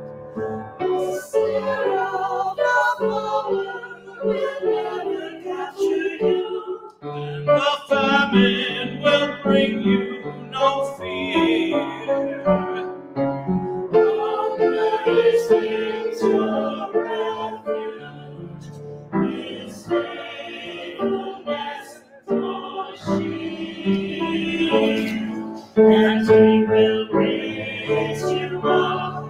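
Small church choir singing an anthem in sustained, slow phrases with piano accompaniment.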